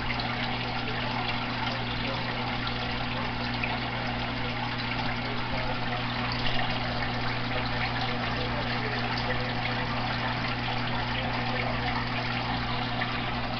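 Aquarium filter running: a steady trickle of water with a low, even motor hum.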